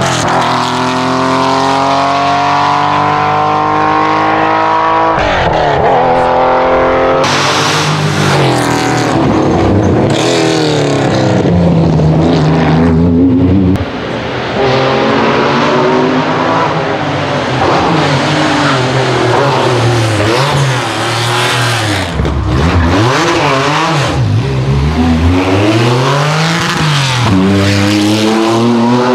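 Classic Porsche 911 rally cars' air-cooled flat-six engines, loud and hard on the throttle, several passes one after another. In the first five seconds one car climbs steadily in revs. After that the revs rise and fall again and again, with throttle lifts and blips on downshifts.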